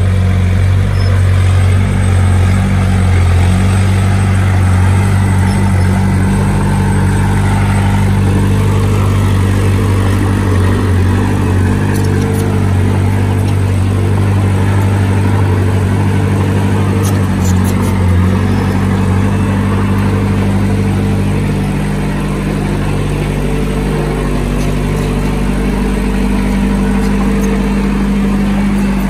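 Heavy earthmoving machine's diesel engine running steadily under work, a deep, even engine note that thins slightly about three-quarters of the way through.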